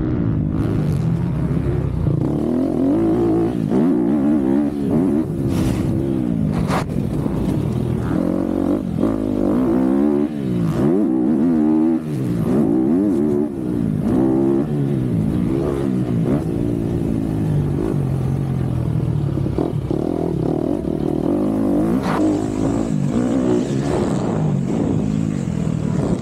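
MX2 motocross bike engine, heard onboard, revving up and down again and again as the rider works the throttle and shifts gears around the track, with a few short knocks from the bike and rough ground.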